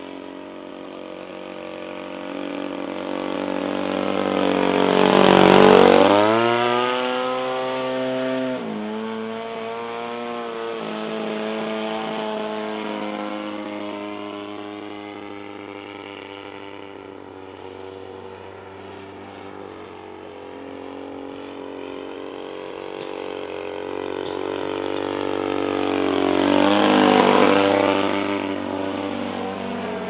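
20cc RCGF two-stroke gasoline engine and propeller of a Seagull Decathlon 120 radio-controlled model plane in flight. It passes close twice, loudest about six seconds in and again near the end, its pitch dropping as it goes by; about eight seconds in the engine is throttled back.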